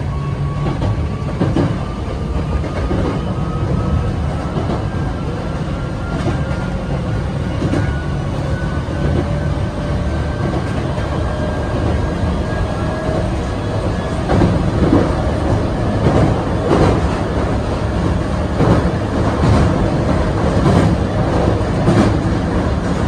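Hankyu 7000 series electric train running and speeding up: a whine from its traction motors rises slowly in pitch over the first dozen seconds. Over the second half the wheels clack over rail joints, the clacks mostly coming in pairs.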